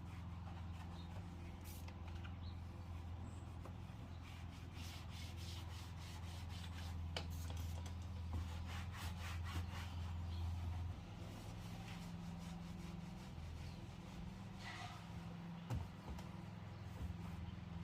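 Quick, repeated rubbing and scrubbing strokes, as when a car's interior is cleaned by hand, over a steady low hum that stops about halfway through. A single sharp knock comes near the end.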